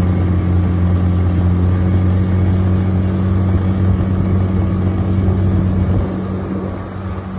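Suzuki 15 hp outboard motor running at near-full throttle, pushing an inflatable boat on plane. The engine gives a steady drone over rushing water and spray, and its level falls a little about six seconds in.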